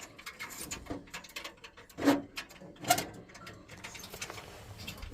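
Light clicks and taps of a screwdriver and small metal parts being handled inside an opened combi boiler, with two louder clunks about two and three seconds in.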